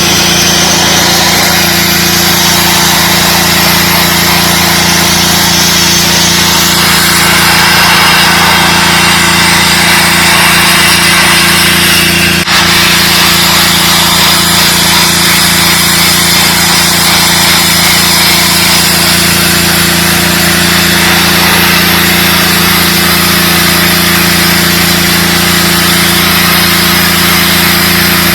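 DeWalt 3600 psi gas pressure washer running steadily, its small engine humming under the hiss of the high-pressure spray, with a brief break about twelve seconds in.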